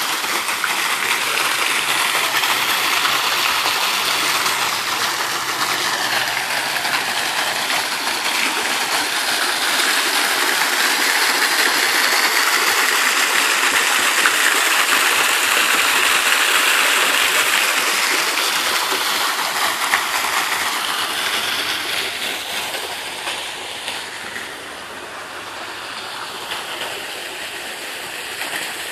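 Rushing water: a loud, steady hiss of flowing water that eases somewhat in the last few seconds.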